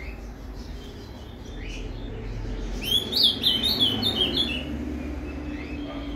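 Ultramarine grosbeak (azulão) singing a phrase of the 'Paraná' song: a few faint notes, then a quick run of clear, falling whistled notes about three seconds in, over a steady low background hum.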